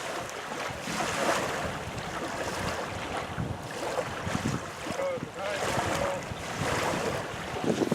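Wind blowing across the microphone in gusts, with water washing against the shore.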